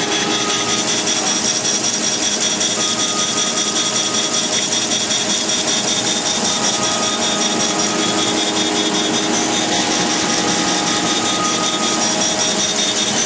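Wasino Meister V3 CNC surface grinder's wheel grinding a hardened S7 tool-steel punch: a steady grinding hiss over the machine's hum and whine. A faint higher tone comes and goes every few seconds.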